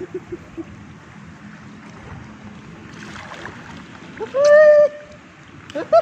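Swimming-pool water lapping softly. About four seconds in, a loud held voice-like call, one pitched note lasting under a second. Near the end come a few shorter rising-and-falling notes.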